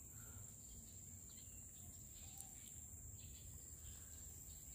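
Near silence, with a faint, steady, high-pitched chirring of insects such as crickets.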